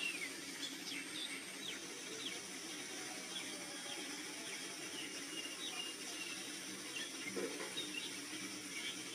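Small birds chirping in short, scattered calls over a steady background hiss of outdoor ambience.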